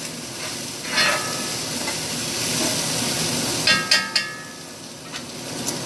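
Chicken and broccoli sizzling in a frying pan as they are stirred, a steady hiss with a few sharp knocks of the utensil against the pan about a second in and again near four seconds.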